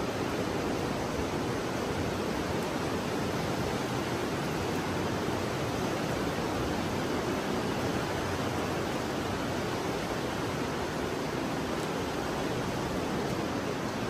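Steady, even rushing noise that holds at one level throughout, with no footsteps, knocks or voices standing out.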